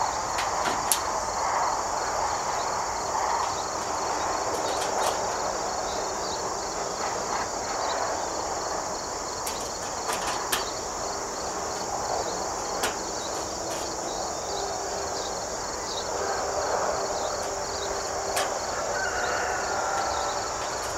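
Steady high chirring of crickets and other insects, with a handful of short sharp clicks from metal nest-box parts and bolts being handled and fastened.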